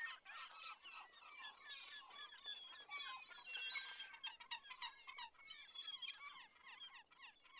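Many small birds chirping and twittering together: a faint, dense chorus of quick, overlapping high chirps and short whistled sweeps.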